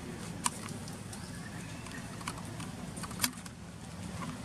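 Three short sharp clicks over a steady low background hum, the loudest a little past three seconds in.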